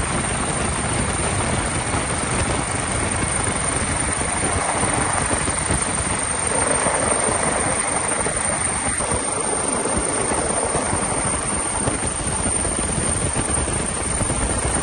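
Steady rotor and engine noise of a helicopter, heard from on board.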